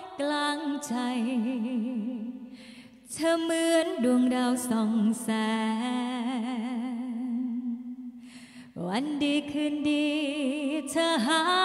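A woman singing into a handheld microphone, holding long notes with a wide vibrato. She breaks off twice, about three seconds in and again around eight seconds, then swoops up into the next note.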